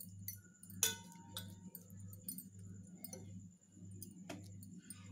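Faint clicks and clinks of a steel plate being handled while a slab of tomato candy is pressed into grated coconut, two sharper clicks standing out. Under them runs a low hum that pulses about one and a half times a second.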